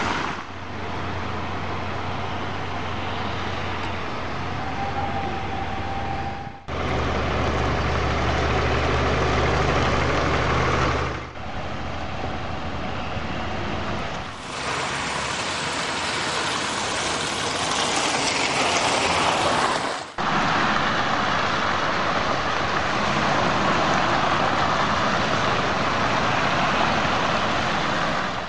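Steady hiss of hail and rain falling on a wet road, with vehicle engines running under it. The sound changes abruptly several times.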